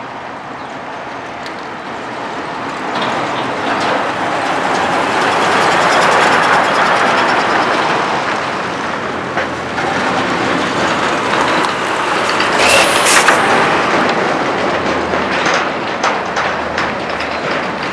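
Heavy lorries driving over a railway level crossing: engine and tyre noise builds and stays loud, with a burst of clattering knocks about two-thirds of the way through as wheels cross the rails.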